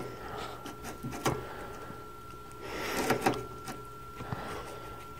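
A hamster nibbling a cucumber through wire cage bars: scattered small crunches and clicks, busiest around three seconds in, over a faint steady high tone.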